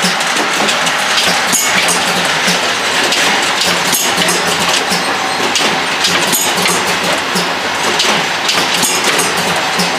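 MZ-400ED filling, capping and labelling monoblock running while filling vials: a steady mechanical din with frequent irregular clicks and clinks of glass vials moving on the rotary indexing table, over a faint low hum.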